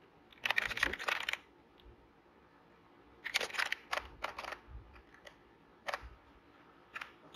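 Computer keyboard typing in two quick bursts of keystrokes, then a few isolated clicks near the end.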